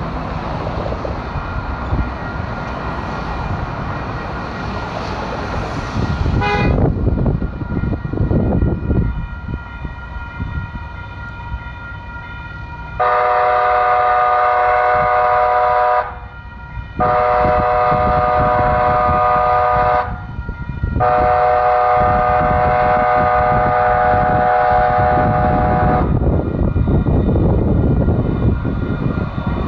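Street traffic, then a railroad crossing bell starts ringing about six seconds in. A light-rail train's horn then sounds three long blasts, the last the longest, followed by the rumble of the train reaching the crossing near the end.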